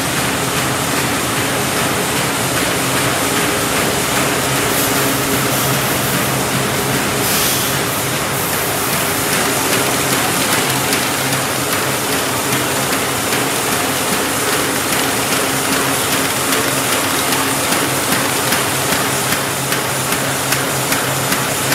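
NWFD-350 automatic high-speed square-bottom paper bag machine running at production speed: a loud, steady mechanical clatter and hum. A brief hiss comes about a third of the way in, and a regular beat of knocks grows clearer near the end.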